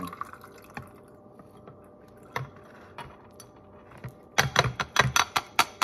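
A glass bowl knocking and clinking against a plastic strainer as soaked cloves are shaken out of it: a few scattered clicks, then a quick run of loud, sharp knocks over the last second and a half.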